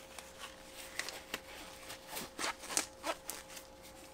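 Short rustles and a string of soft clicks from black-gloved hands moving in to handle a leather sneaker, the busiest and loudest stretch in the middle.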